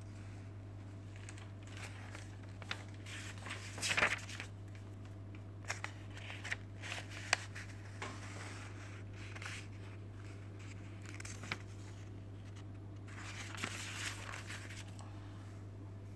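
Glossy pages of a thick recipe booklet being turned and handled: scattered paper rustles and light taps, with louder rustles about four seconds in and again around thirteen seconds in, over a steady low hum.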